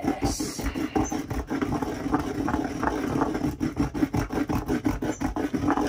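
Pestle pounding and grinding pepper and lovage in a mortar: quick repeated knocks mixed with scraping, several strokes a second.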